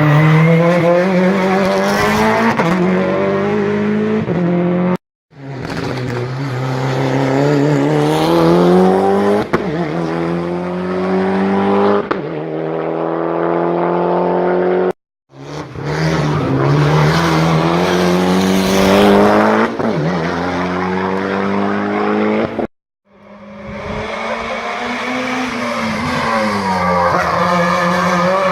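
Race car engines at full throttle, revving up and dropping back at each gear change, with the pitch climbing again after every shift. The sound cuts off briefly three times and resumes on another car's run.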